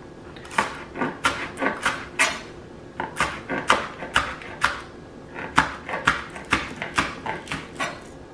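Chef's knife chopping green onions on a plastic cutting board: quick knocks of the blade on the board, about four a second, with a short pause a little over two seconds in.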